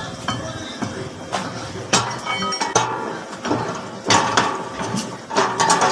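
Metal clinks and knocks as a steel shaft with a splined end is fitted into the aluminium hub of an ice cream mixer's paddle plate: a handful of irregular sharp strikes, the loudest about four seconds in and near the end.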